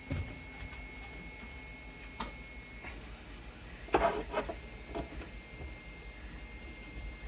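Objects being handled and moved around on a workbench: scattered light clicks and knocks, with a louder clatter about four seconds in.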